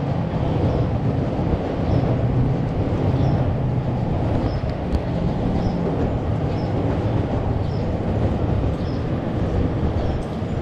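Train running: a steady low rumble of rail travel, with faint short high chirps repeating about once a second.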